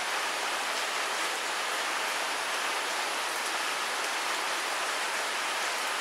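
Steady hiss of light rain falling.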